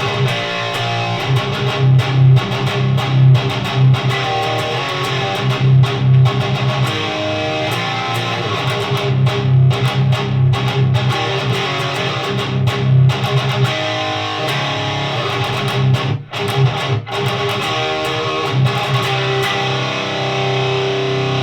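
Distorted electric guitar played through a Noise Pollution Plush Box overdrive pedal: high-gain metal riffing in chugging phrases with short stops between them. It ends on a held chord ringing out.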